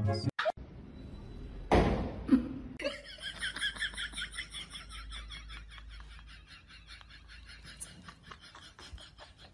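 A person laughing in a long, rapid run of high-pitched 'ha' pulses that slowly fades away, after a sudden loud noise about two seconds in.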